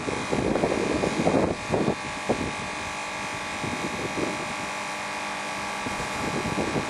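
Wind buffeting the microphone for about two seconds, then a steady electrical hum with several even tones from the mains transformer rig that powers the battery test.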